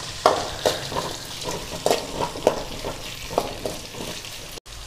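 Steel spoon scraping and knocking against a metal kadai as sliced onions and green chillies are stirred and sautéed in sizzling oil: irregular strokes every half second or so over a steady frying hiss.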